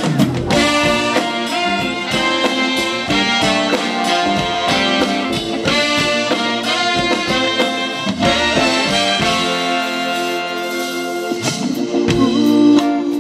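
Live swing band playing an instrumental passage led by a horn section of brass and saxophone, with drums keeping a steady beat.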